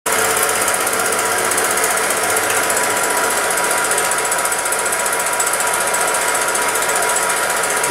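Film projector running, its film-advance mechanism making a steady rapid clatter over a constant hum.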